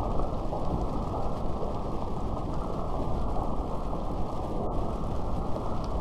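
Steady rain falling in a dense, even patter. It sounds dull and muffled, with almost nothing in the high end.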